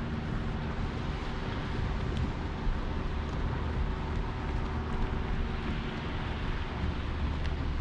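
Wind rumbling on the microphone over a steady, even outdoor hiss, with a few faint ticks.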